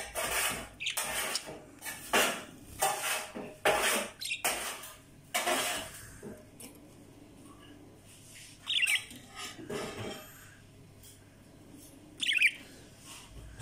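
Budgerigar close to the microphone: a run of short scratchy noises over the first six seconds, then two short chirps about nine and twelve seconds in.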